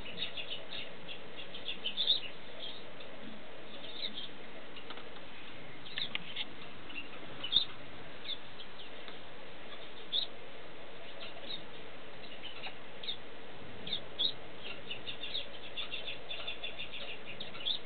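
Short high chirps and clicks from a small caged pet, scattered through, with one louder click about halfway through the first half and a quick run of them near the end, over a faint steady hiss.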